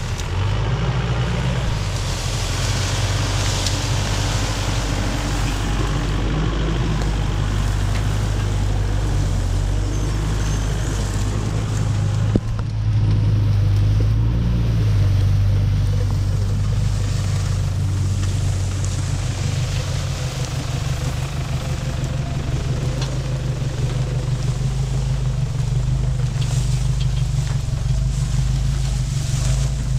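Four-wheel-drive ute's engine running at low revs as it crawls off-track through tall dry grass, a steady low hum that swells a little about 13 seconds in.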